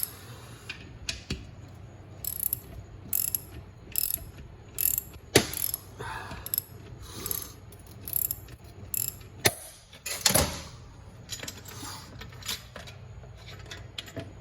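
Ratchet wrench clicking in short strokes, about two a second, as the bolt of a low/reverse piston spring compressor tool is backed off, with a couple of sharper metal knocks partway through.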